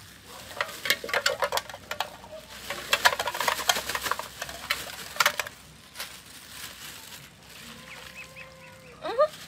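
Plastic bag crinkling and rustling in quick crackles as food is shaken out of it into a metal pot. Near the end come a long steady animal call and a few short rising cheeps.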